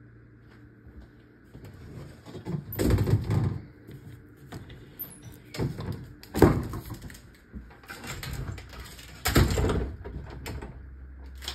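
White louvered bifold closet doors being handled, shut and opened. They give three loud bursts of knocking and rattling, about three, six and nine and a half seconds in.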